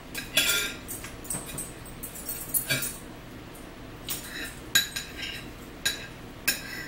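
Metal fork clinking and scraping on a plate in a string of short bursts as food is picked up, with eating sounds mixed in.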